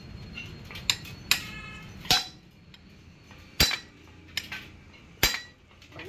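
Hand hammer striking the steel hub of a harvester roller, about six uneven metal-on-metal blows, one of them ringing on briefly.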